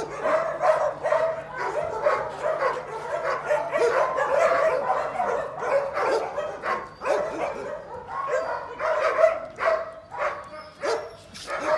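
Many dogs barking, yipping and whining at once, their short calls overlapping without a break.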